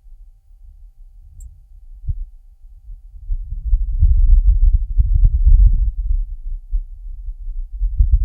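Low rumble of a wind gust on Mars, recorded by the Perseverance rover's microphone, with the rover's own high-pitched noise filtered out. It swells about three seconds in, dips, and rises again near the end.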